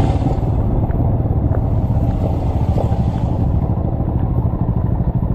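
Royal Enfield Himalayan's single-cylinder engine running steadily under load, with an even rapid pulse, while the motorcycle is ridden on a rough off-road track.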